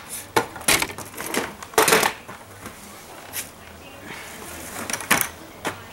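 Short knocks and clatters of tools and cut rubber mold pieces being handled and set down on a worktable by a plastic miter box. They come thick in the first two seconds, then a quieter stretch, then two more knocks near the end.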